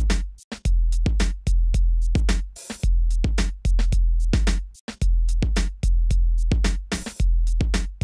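Electronic background music: a drum-machine beat of sharp regular hits over deep held bass notes.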